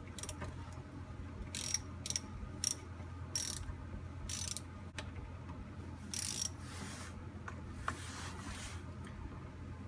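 Hand ratchet wrench being worked in about six short strokes, each a quick burst of high metallic clicking, followed by a softer rasp.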